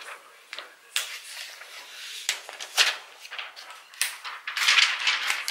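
Clear plastic protective film being peeled off a new laptop LCD panel: a run of irregular crackles and crinkles, densest and loudest near the end.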